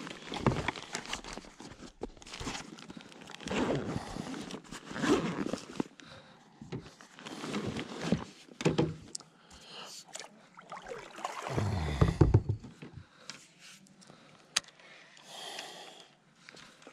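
Rustling, scraping and zipper sounds of gear being rummaged through a soft fabric tackle bag, with occasional sharp clicks of a fishing rod and baitcasting reel being handled. A brief, loud low rumble about twelve seconds in.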